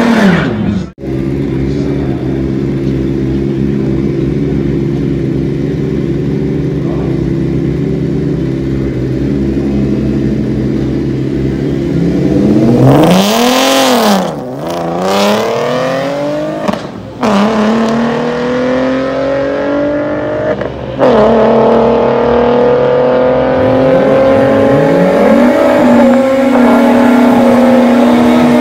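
Volkswagen drag racing cars' engines at full throttle on the drag strip, in several cut-together runs: a steady high-revving drone, a quick rev up and down about halfway through, then an engine climbing steadily in pitch as it accelerates.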